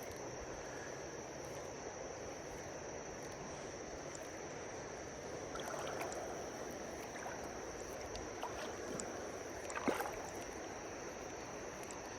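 River current rushing steadily, with a constant high insect drone over it. A few light splashes and clicks come about six and ten seconds in.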